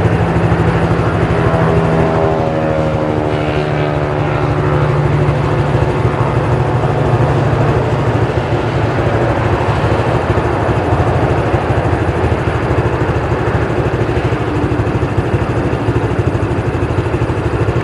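A New Holland 8060 combine harvester's diesel engine running steadily under load, with a rising tone about two to five seconds in.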